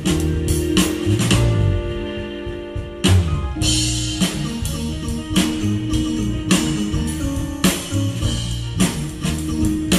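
Live band of electric guitar, bass guitar, keyboards and drum kit playing a groove. About a second in, the drums drop out for a moment under a held chord, and the full band comes back in with a loud hit about three seconds in.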